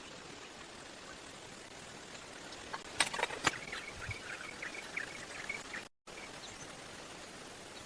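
Steady outdoor background hiss, like running water or light rain. About three seconds in come a few sharp clicks or snaps, then a quick run of short high chirps for a couple of seconds.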